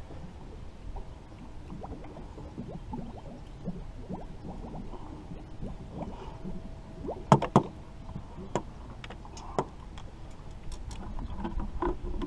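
Knocks and clatter of handling on a boat, with a light rustle between them. A sharp double knock about seven and a half seconds in is the loudest, and a single knock follows two seconds later.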